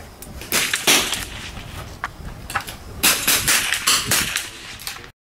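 Target rifles firing single shots along an outdoor firing line, crack after crack at uneven intervals, with several shots close together about three seconds in. The sound cuts off abruptly shortly before the end.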